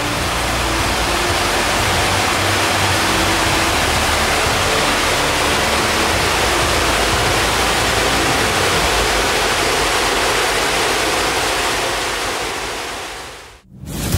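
Steady rush of high-pressure water jets discharging from a dam's outlets into the tailrace, fading out about a second before the end.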